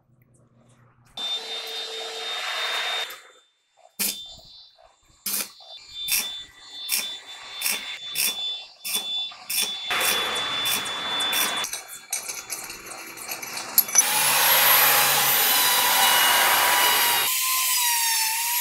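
Metalworking on a semi truck's V-bar torque rod bearing eye: a series of sharp knocks about two a second, a welding arc crackling briefly, then a straight grinder cutting into the steel bearing bore, loud at first and settling into a steady whine near the end. The worn bearing hole is being built up with weld and ground back to shape.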